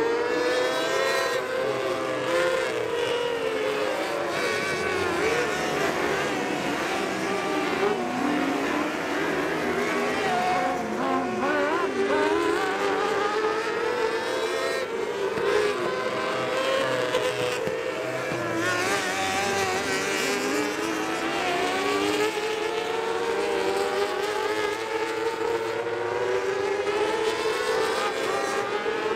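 A pack of micro mini sprint cars racing, several small engines running at once and overlapping, each rising and falling in pitch as the cars accelerate and back off around the track.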